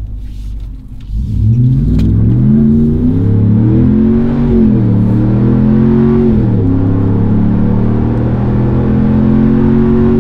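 Ram 1500's 5.7-litre Hemi V8 at wide-open throttle through an MBRP 3-inch cat-back exhaust with dual rear exits. About a second in the engine note comes in and climbs, drops back at two upshifts, then holds and rises slowly in the next gear.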